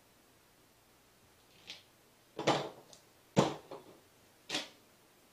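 Four short scraping and knocking handling sounds about a second apart, the middle two loudest: clear duct tape being pulled from its roll and the roll and tools set down on the work table.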